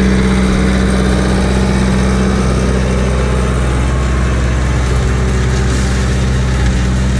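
New Holland TL75E tractor's diesel engine running steadily under load as it pulls a 22-disc offset harrow through unbroken ground.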